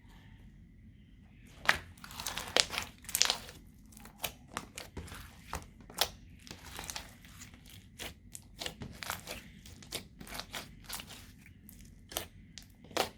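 Slime being kneaded and squished by hand, giving irregular wet clicks, pops and crackles, some of them sharper and louder than the rest.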